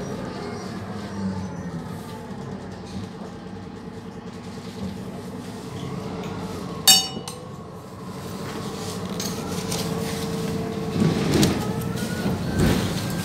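Van Hool NewA309 city bus heard from inside: its MAN D0836 six-cylinder diesel and ZF automatic gearbox running, with a drivetrain whine that slides in pitch as the bus changes speed. A short bright ding rings out about halfway through. Near the end come a few knocks and rattles as the bus draws up to a stop.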